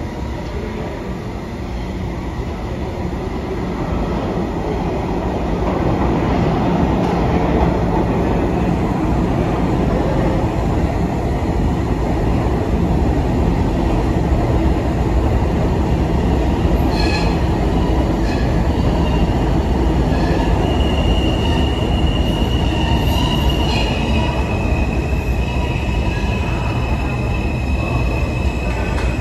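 New York City subway train rumbling into the station on the express track, growing louder over the first few seconds and then staying loud. About two-thirds of the way through there are a few clicks, and then a steady, high-pitched wheel squeal sets in and holds to the end.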